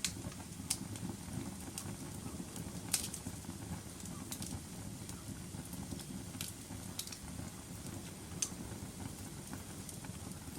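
Fireplace fire crackling: a steady low rumble of flames with scattered sharp pops, the loudest about three seconds in.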